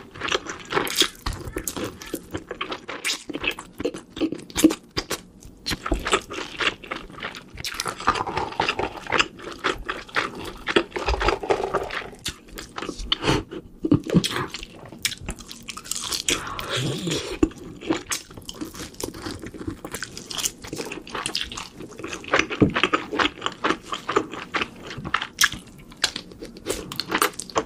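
Close-miked chewing and crunching of sauced fried meat dipped in melted cheese: a dense, irregular stream of crunches and bites, with a few brief murmurs between mouthfuls.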